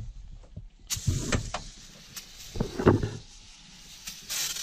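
Aerosol can of degreaser spraying with a steady hiss that starts about a second in, broken by a few dull knocks, the loudest near the middle.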